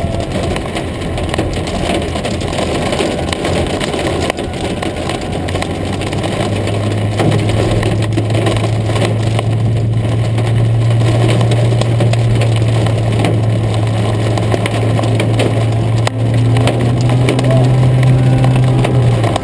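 Heavy rain and hail pelting the roof and windscreen of a Mitsubishi Lancer sedan, heard from inside the cabin as a dense, loud clatter of countless small hits. A steady low hum joins in about a third of the way through.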